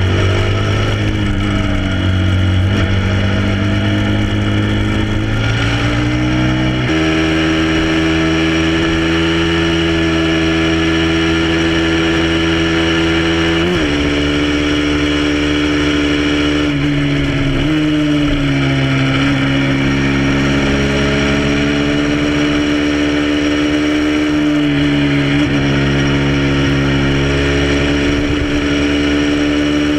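Motorcycle engine running under way at steady revs. Its note changes sharply a few times, about a quarter of the way in, near halfway and again a little after, as it shifts gear.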